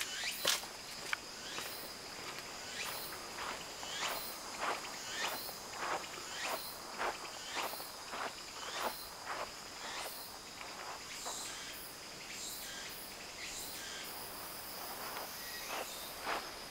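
Footsteps of a person walking at a steady pace on a paved path, about two steps a second, slowing and briefly pausing about two-thirds of the way through before walking on. Underneath is a steady, faint high-pitched tone.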